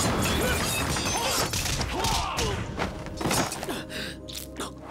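Fight-scene sound effects: a dense run of thuds and crashes, with short shouted grunts in the first few seconds.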